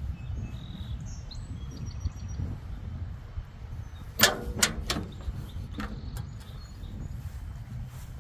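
Rear door of a 1976 Ford F-250 crew cab being unlatched and opened: a few sharp metallic clicks of the handle and latch about four seconds in, then a softer clunk. Birds chirp faintly early on, over a steady low rumble.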